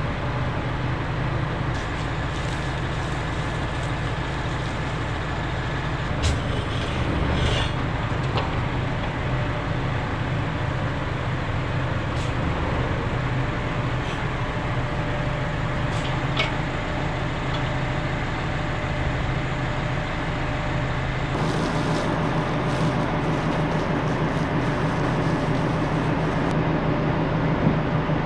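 Tractor engine running at a steady speed while it drives a PTO slurry pump set in a manure pit, with a few brief clicks over the drone.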